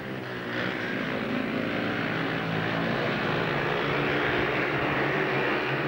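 Speedway motorcycles racing, their 500cc single-cylinder methanol-fuelled engines running hard in a dense, continuous, buzzing engine note that grows a little louder about half a second in.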